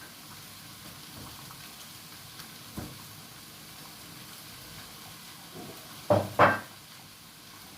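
Food sizzling in a pan with light stirring, with a sharp knock about three seconds in and two short, louder sounds close together about six seconds in.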